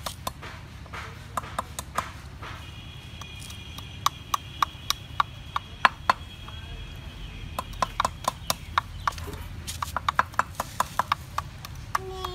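Knife blades knocking sharply on a wooden chopping block as small fish are cut and cleaned by hand: irregular single strikes, sometimes in quick runs of several knocks.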